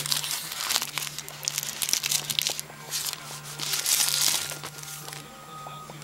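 Clear plastic shrink wrap crinkling and crackling as it is peeled off a cardboard box, in about four bursts, quieter in the last second or so.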